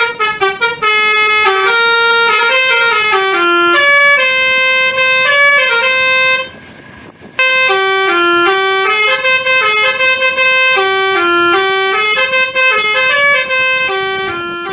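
Telolet basuri musical bus horn playing a quick melody of stepping notes. It breaks off for about a second halfway through, then plays on.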